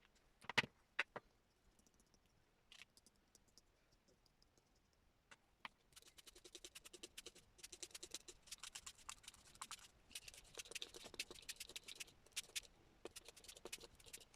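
Sped-up craft work on paper journal pages: a few sharp taps about half a second in, then from about six seconds on a fast run of light dabbing and scratching as colour is worked onto the pages.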